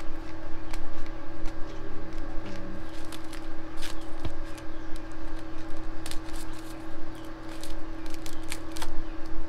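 Scissors snipping through a printed PVC ID sheet, a run of irregular sharp snips with the sheet rustling, thickest in the second half, over a steady low hum.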